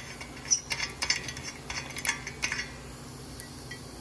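Light metallic clinking and clatter of steel hand tools and brake parts being handled: a run of irregular, sharp clinks over the first two and a half seconds, then only an odd faint tick.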